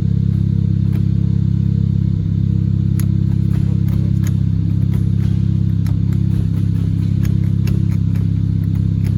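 2018 Hyundai Elantra Sport's 1.6-litre turbo four-cylinder engine idling steadily, with scattered light clicks over it from about three seconds in.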